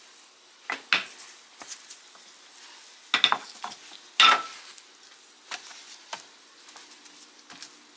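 Gloved hands pressing and handling soft bread dough on a plastic board: a few scattered short slaps, taps and rustles with quiet between them, the loudest about four seconds in. A faint steady hum comes in near the end.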